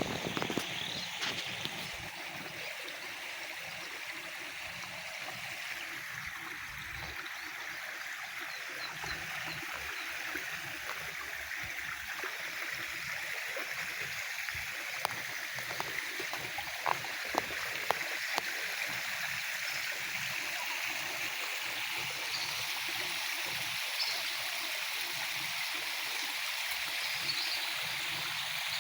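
Water flowing steadily, with a few short sharp clicks about halfway through.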